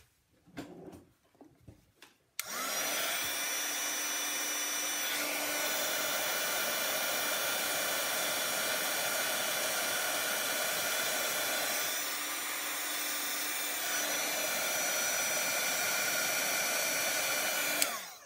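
Embossing heat tool blowing hot air steadily, switched on about two seconds in and cut off just before the end, a rush of air with a thin steady whine over it. It is melting embossing powder on a freshly stamped paper sentiment.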